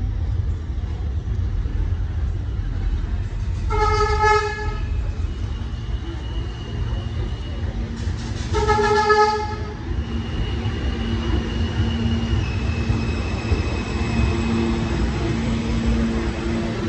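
MTA R160A subway train pulling into the station over a steady rumble from the rails. Its horn sounds twice, about four and about nine seconds in, the second blast a bit longer. A high, steady whine runs between and after the blasts as the train slows to a stop.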